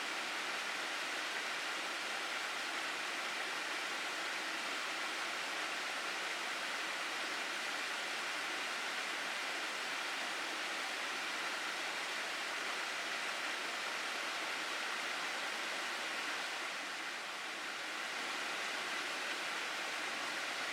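Water of a mountain stream rushing steadily over rocks, a continuous even hiss with a slight brief drop in level near the end.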